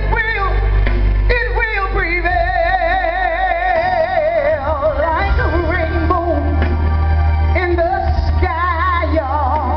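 A woman singing a gospel ballad live, holding long notes with wide vibrato, over a band with a heavy, steady bass.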